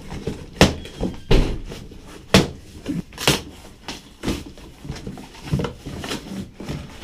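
Cardboard shipping box being opened by hand: packing tape ripped off and the flaps pulled back, a run of irregular sharp tears, crinkles and knocks.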